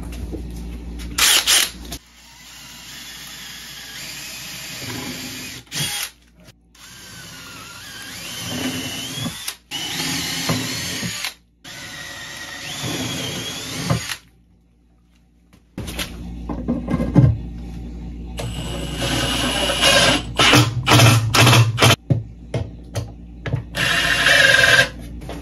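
Power drill working on wood in a series of short bursts cut one after another, its motor whine rising and falling in pitch as the wooden box is put together.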